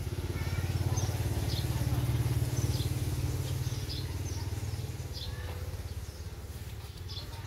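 A small engine running close by, rising to its loudest about two to three seconds in and then fading away, as of a motorcycle passing.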